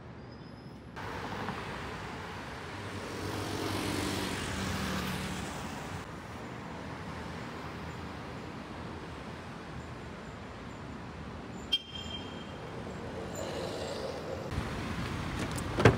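Road traffic on a wide city avenue: cars passing with a steady tyre and engine hum. One vehicle swells past a few seconds in, and there is a single sharp click later on.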